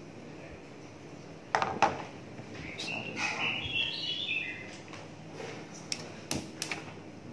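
Frying pan set down on a gas stove's metal grate with two sharp knocks, over a steady low hiss from the lit burner. A few high chirps follow, and a few lighter clicks come near the end.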